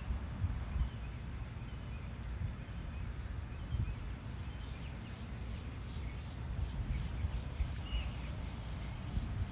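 Outdoor ambience: a low, uneven rumble with faint bird chirps over it, and one brighter chirp about eight seconds in.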